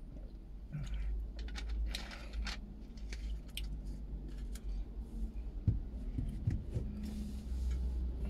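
Street ambience picked up by a handheld phone microphone: gusts of wind rumbling on the mic, with scattered clicks and rustles about a second or two in and a few dull knocks later. Near the end, a car's tyre and engine noise rises as it approaches.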